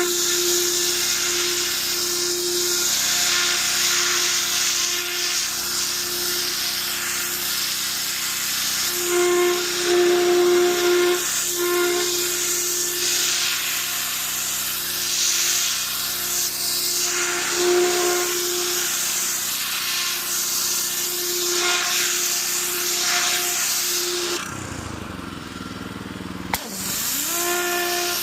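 Pressure washer running: a steady motor whine with the hiss of the water jet. Near the end the spray and motor cut out for about two seconds, then start up again with a click.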